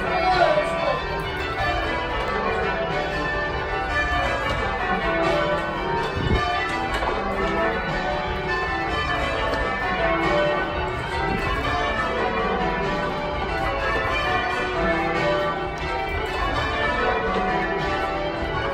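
Church bells being rung full circle in change ringing: a continuous, even stream of bell strikes from a heavy ring with a 30 cwt tenor in D, heard from the ringing chamber below the bells.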